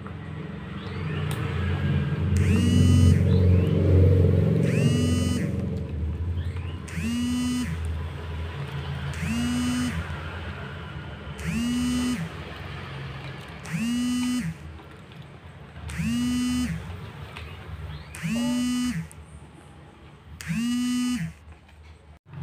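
A low engine-like rumble for the first few seconds, then a horn-like tone sounding nine times in a steady rhythm, about every two seconds. Each tone lasts under a second, with a short rise at the start and a drop at the end.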